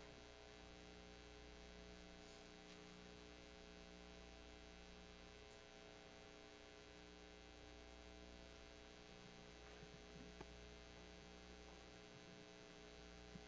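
Near silence: a steady electrical mains hum with a few faint clicks about ten seconds in and near the end.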